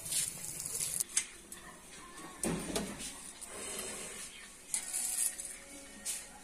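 A brief sizzle of pork roasting over charcoal, then a metal fork scraping and clicking against a steel skewer and plate as the roasted pork pieces are pushed off onto a steel plate, in a string of short sharp clinks and scrapes.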